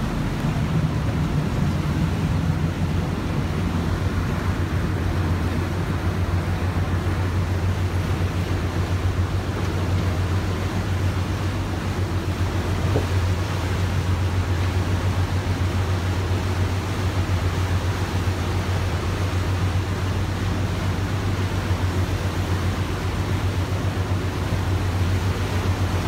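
Motor boat's engine running steadily under way, a constant low drone, with the rush of the churning wake and water along the hull.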